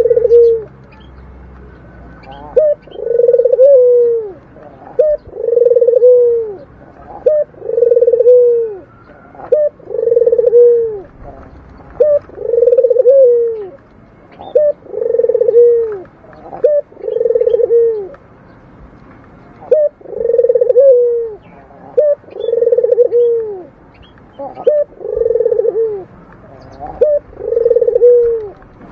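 Barbary dove (burung puter) repeating its rolling, snore-like coo: a short note and then a longer call that falls away at the end, about every two seconds.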